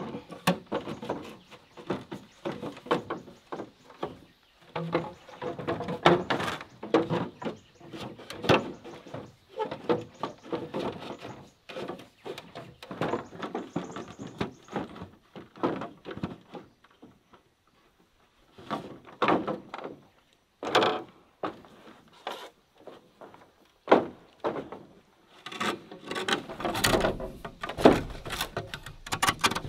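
Hollow bamboo poles knocking and clattering against the bamboo raft as they are laid and shifted into place, a string of sharp wooden knocks with short gaps. Near the end, a knife chopping and cutting into a bamboo pole.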